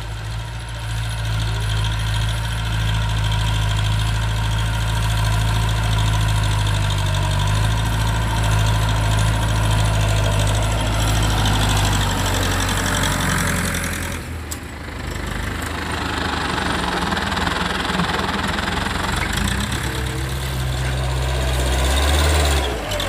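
Farm tractor's diesel engine running steadily under load while it pulls a cultivator through soil, a continuous low drone. The sound briefly drops away about 14 seconds in, then resumes.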